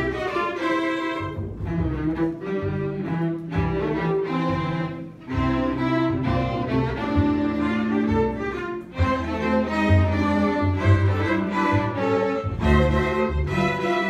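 String ensemble of violins, cello and double bass playing together, bowing sustained notes over a strong low bass line, with brief breaks between phrases about five and nine seconds in.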